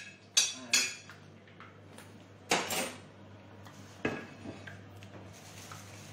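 Kitchen utensils and crockery clinking and clattering against plates and pans in a few separate knocks, the loudest a double clatter about two and a half seconds in, over a steady low hum.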